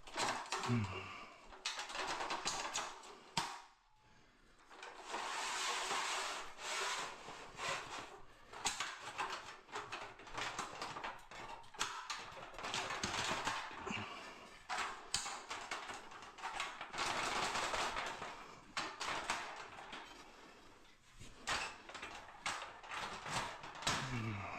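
Irregular rustling, scraping and clicking of someone handling tools and materials at close range, with two short low falling sounds, one near the start and one near the end.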